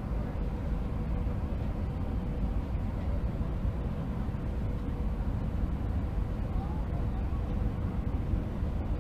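Steady cabin noise inside an Airbus A319 airliner on short final approach: a low, even rush of airflow and engines, with a faint steady hum.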